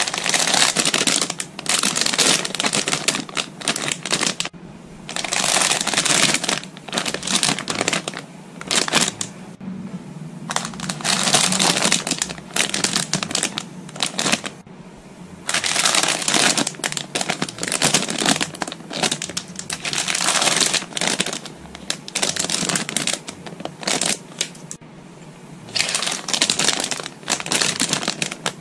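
Clear plastic bags holding model-kit runners crinkling as they are handled and lifted out of the box, in irregular spells of a few seconds with short pauses between.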